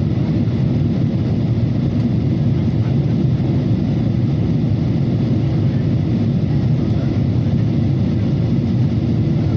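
Airliner cabin noise in flight: a steady, even low rush of engine and airflow noise heard from inside the cabin.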